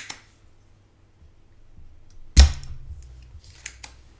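Desoldering a cable from a power-supply circuit board: small clicks of the soldering iron and wire at the joint, and one sharp knock about two and a half seconds in, followed by two more light clicks near the end.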